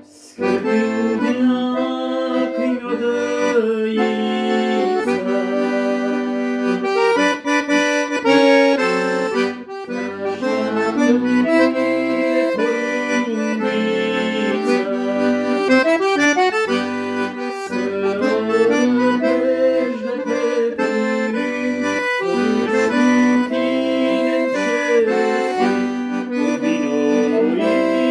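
Piano accordion playing a melody in G major on its treble keyboard, with sustained reedy notes and chords moving steadily.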